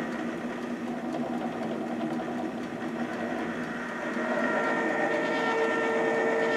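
Ronco rotisserie oven running with its spit motor turning a turkey breast: a steady hum with several held tones over a hiss, a little louder from about four seconds in.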